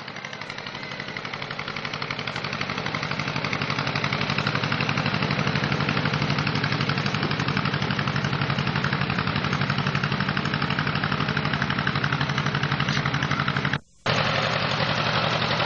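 Small farm tractor engine running with a steady, rapid, even putter. It grows louder over the first few seconds as the tractor comes closer, then holds steady, with a brief break in the sound near the end.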